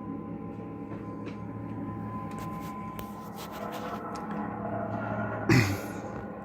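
A low, steady drone made of several held tones, slowly growing louder: the unexplained noise that the recorder says comes from the sky. About five and a half seconds in, a short loud sound cuts across it.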